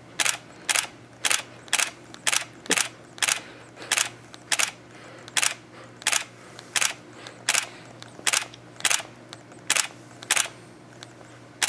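Camera shutter clicking again and again, about eighteen sharp clicks at roughly half-second to three-quarter-second intervals.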